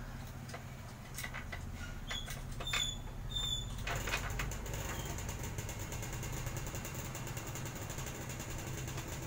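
Bolt and steel frame parts of an adjustable weight bench clinking as the bolt is fitted: a few light metallic clicks with short ringing. From about four seconds in, a steady fast run of small ticks.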